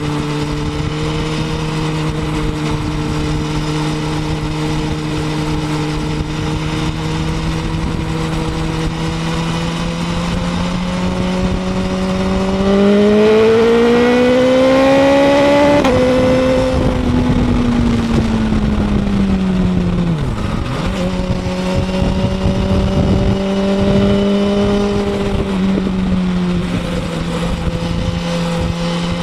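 BMW S1000RR inline-four engine running through a Pro-Race aftermarket end can while riding. It holds steady revs, the revs rise for a few seconds about halfway through, drop suddenly as the throttle closes, and the engine slows and settles back to steady running.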